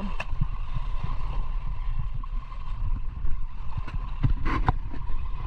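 A small engine running steadily with a low rumble, a faint steady hum above it and a few light clicks.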